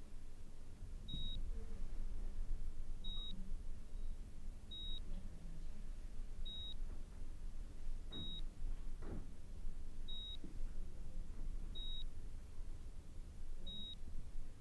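Hospital patient monitor beeping: a short, high beep repeating evenly about every 1.8 seconds, over a low steady room hum.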